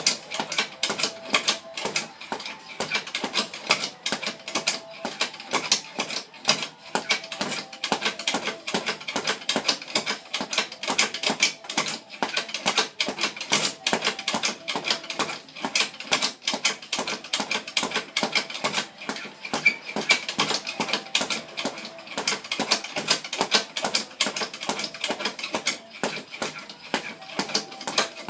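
Rapid, continuous rhythmic knocking from a hand striking something over and over, several hits a second, kept up without a pause.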